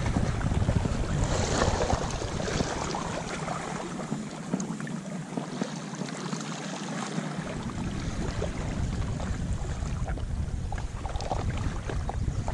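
Small sea waves washing and splashing over shoreline rocks, with wind buffeting the microphone as a low rumble that eases off for a few seconds midway.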